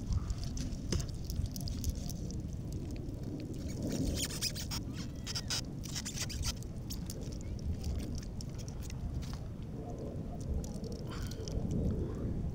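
Low steady rumble of wind and water against the microphone, with a cluster of small clicks and crackles about four to seven seconds in, and a few more near the end, as a raw fish is skinned and pulled apart by hand.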